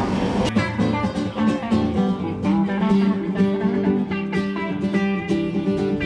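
Live guitar band playing: acoustic guitar strumming chords in a steady rhythm, coming in about half a second in.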